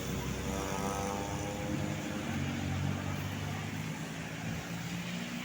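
Road traffic from a passing bus convoy: engine hum with a whine of several tones over the first two and a half seconds that then fades.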